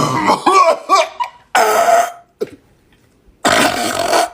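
A person burping after gulping the carbonated soft drink Sprite: three loud burps with short gaps between them, the first long and wavering in pitch.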